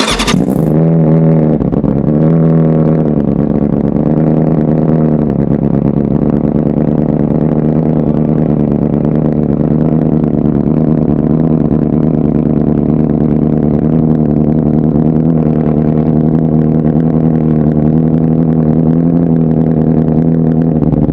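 BMW M1000RR's inline-four engine, breathing through Akrapovič titanium headers and an Austin Racing V3 slip-on muffler, catches suddenly on start-up. Its pitch rises and falls twice in the first few seconds, then it settles into a steady idle.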